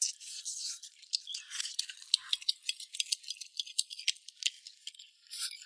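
Rapid, irregular crackling and rattling, high-pitched with no low end.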